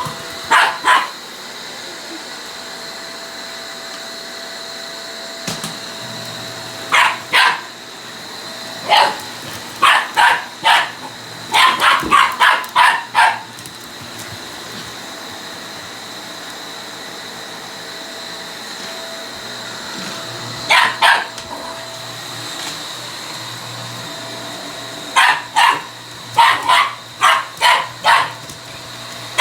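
Shiba Inu barking in short bursts at a running vacuum cleaner. The vacuum's steady whine runs underneath, with a quiet stretch of barking in the middle and a fast run of barks near the end.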